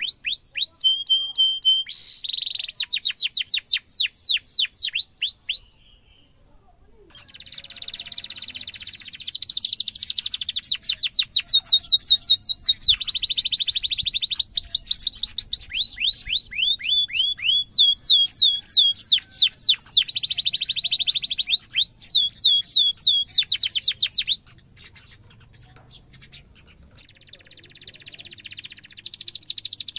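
Domestic canary singing a long song of fast trills and quick runs of falling notes, with a short break about six seconds in and a quieter stretch near the end.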